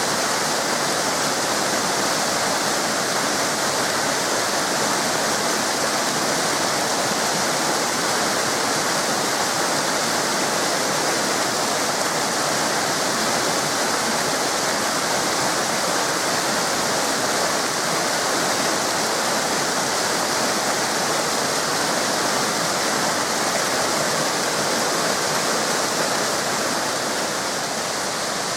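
Waterfall cascades rushing in a steady, even roar of falling water.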